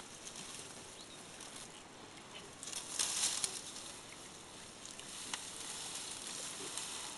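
African elephant feeding at close range: rustling and crackling of grass and twigs as it pulls and chews vegetation, with a louder burst of rustling about three seconds in.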